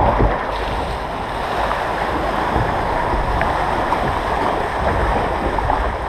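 Water rushing and lapping in the trough of a MACK Rides log flume as the log boat floats along the channel, a steady rushing noise with wind buffeting the microphone underneath.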